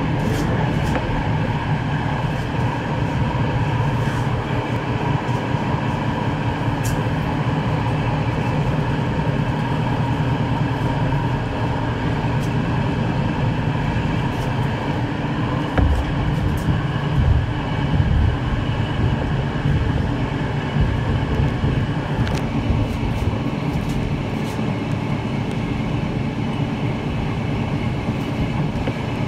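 SA137 diesel railbus running along the track, heard from inside the car: a steady engine drone over wheel-on-rail rumble. A few louder knocks come about halfway through, and the engine note shifts about three-quarters of the way through.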